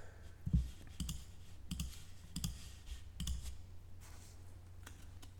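Several faint, irregular light clicks and taps of trading cards being handled.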